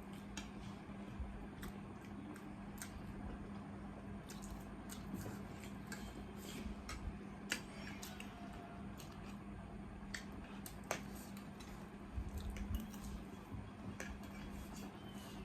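Quiet eating sounds: scattered soft clicks and taps of cutlery on plates, over a low steady hum.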